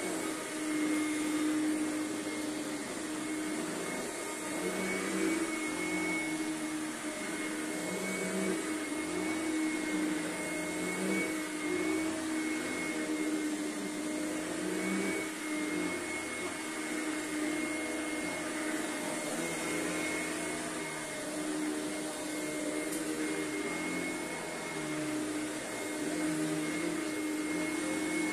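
Bio SpeedClean upright vacuum cleaner running steadily with a high motor whine as it is pushed back and forth. The owner says it needs a new belt.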